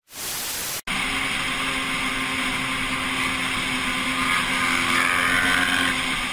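A burst of TV-static hiss lasting under a second that cuts off sharply, then the steady engine hum and road noise of a vehicle driving along a paved road.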